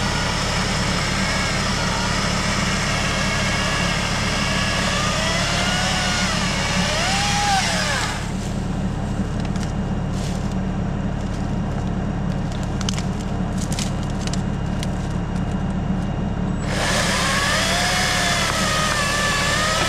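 Chainsaw running, revving up and down a few times and again near the end as it goes into a log, under a steady low engine hum.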